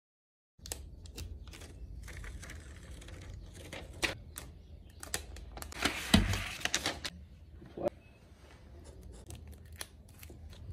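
After a brief dead silence, hands handle and rustle the paper and cardboard packaging of an iPad box, then peel off the thin plastic protective film, a crinkling tearing rustle that is the loudest stretch, about six seconds in.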